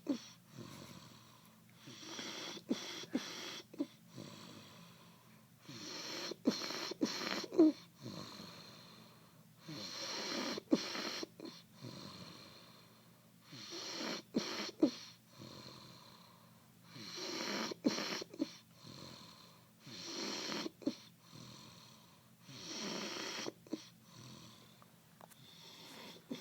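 Snoring in slow, even breaths, one about every three seconds, each breath carrying a few short, sharp clicks or snorts.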